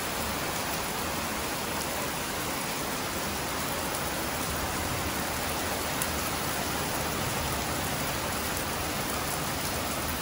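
Heavy rain pouring down steadily, an even hiss of a downpour soaking a lawn.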